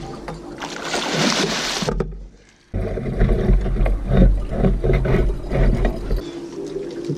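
A hooked flathead catfish thrashing and splashing at the water's surface, then water sloshing with low knocks and thumps as it is scooped into a landing net. The sound cuts out briefly about two seconds in.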